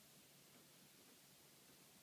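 Near silence: faint steady room tone.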